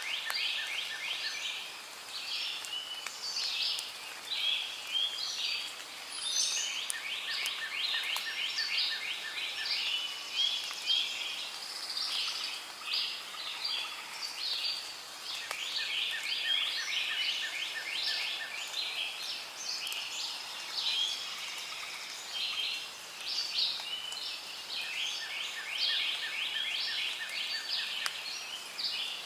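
Rainforest ambience: a dense chorus of birds and insects chirping and trilling. A lower, rapid trill comes back about every eight seconds.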